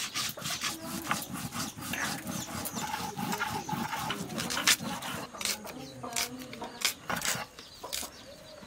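Cumin seeds being ground by hand on a flat grinding slab with a stone roller (sil and nora): repeated scraping, rasping strokes of stone on stone, several a second.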